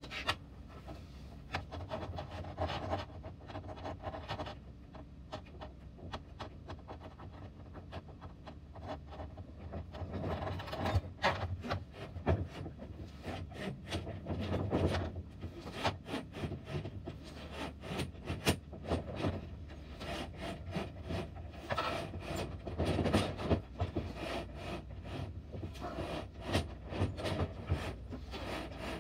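Stainless steel wire rope of a roller-furling headstay being worked through the long aluminium furler extrusion on a wooden bench: continuous scraping and rubbing with many small clicks and knocks, busier from about ten seconds in.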